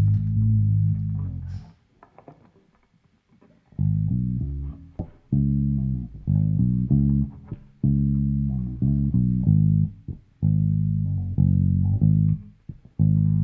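Solo electric bass guitar playing the intro riff: a low held note that dies away, a pause of about two seconds, then a repeating phrase of plucked notes.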